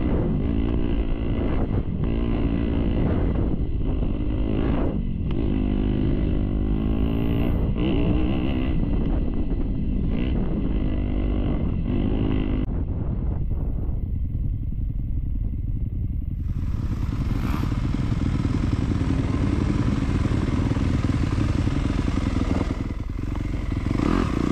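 Dirt bike engine being ridden hard, revving up and down with the throttle chopped several times in the first twelve seconds or so. After about thirteen seconds the engine note turns steadier and lower.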